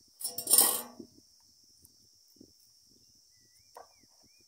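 A brief, gritty scraping clatter of under a second, a quarter second in, from the hand grinding stone and utensils as pigeon peas are cracked. After it comes steady high insect chirring with a few faint bird chirps near the end.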